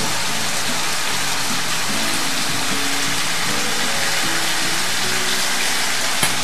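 Shredded vegetables sizzling in a hot frying pan of sauce as they are tipped in and stirred with a spatula, a steady hiss, with background music underneath and a brief knock near the end.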